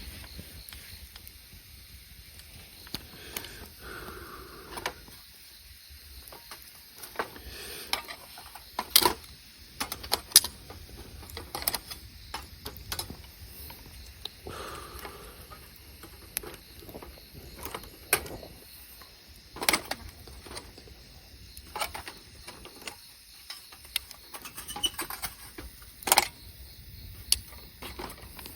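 Wood campfire crackling, with irregular sharp pops and snaps every second or two.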